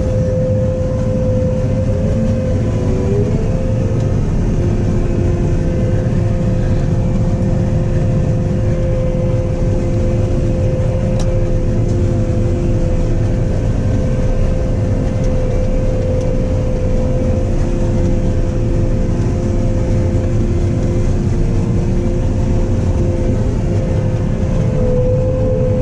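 Combine harvester running steadily while combining corn, heard from inside the cab: a constant low drone with a steady high whine. A second, lower whine joins about four seconds in and drops out near the end.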